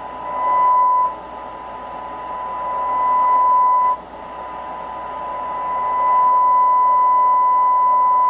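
Hallicrafters SX-71 receiver's speaker sounding a steady high test tone over hiss as a 50 MHz signal is tuned in on band 5, the band now working with its band switch cleaned. The tone is loud, drops away about a second in and again about four seconds in, climbs back each time, and holds steady from about six seconds in.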